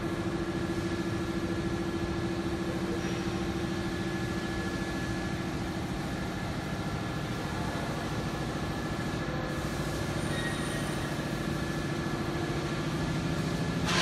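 A steady, low mechanical hum, like machinery running, holding the same pitch throughout.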